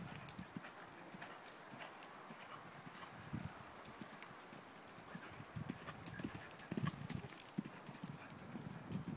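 Hoofbeats of a ridden horse cantering on a sand arena: dull thuds in an uneven, rolling rhythm.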